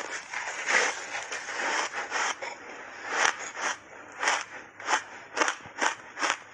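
Crunching bite into a puck of refrozen, reshaped ice coated in matcha powder, then steady chewing crunches, about two or three a second, picked up close by a clip-on microphone.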